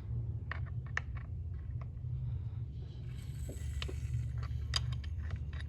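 Steady low hum with scattered sharp clicks and light knocks of tools and fittings while a car's clutch hydraulic system is bled; the clicks come more often after about three seconds.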